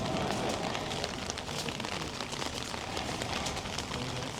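Rain falling: a steady hiss peppered with many small drop ticks.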